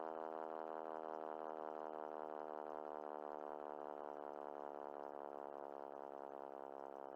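Fire truck siren winding down: one buzzing tone whose pitch falls slowly and steadily while it grows gradually fainter.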